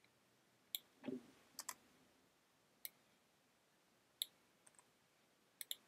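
Faint computer mouse clicks, about seven scattered single clicks and two quick double clicks, as clips are selected and deleted in a video editor.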